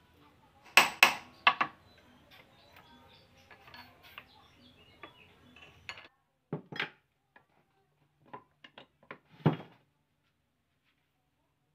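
Metal clinks and knocks from a car's tie rod end being handled in a steel bench vise: three sharp clicks about a second in, lighter scattered ticks, then two louder knocks midway and near the end.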